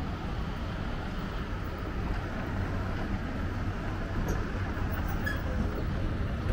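Escalator running with a steady low rumble and hum.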